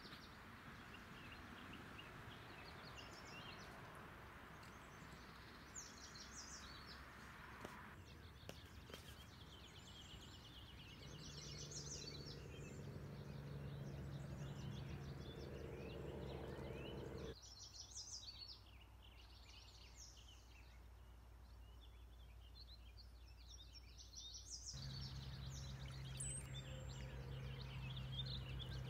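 Faint outdoor ambience with birds chirping and singing. A low steady hum comes in about a third of the way through, and the background changes abruptly a few times.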